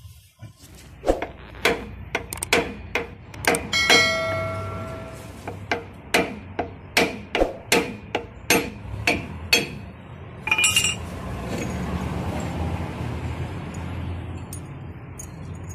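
A hammer knocking repeatedly on the steel axle-shaft flange at a truck's rear wheel hub, about two blows a second for some nine seconds, one blow ringing briefly. The blows loosen the axle shaft so it can be drawn out. A single metallic clink follows about two-thirds of the way through.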